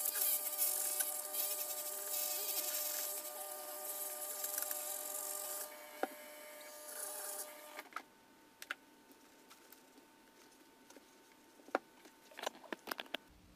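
Dremel rotary tool, set to speed 5, running at a steady high whine while its stone bit grinds and polishes an aluminum cylinder-head port, with a gritty hiss over the whine. About six seconds in the grinding stops and the sound drops away, leaving a faint steady tone and a few sharp clicks near the end.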